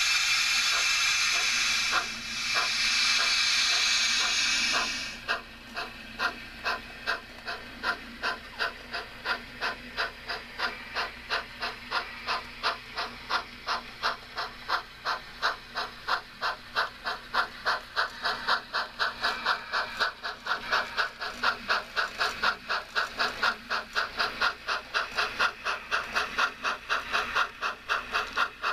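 Sound system of a model Baldwin 2-6-0 steam locomotive: a loud hiss of released steam for about five seconds, then a steady beat of exhaust chuffs that gradually quickens as the locomotive pulls away with its train.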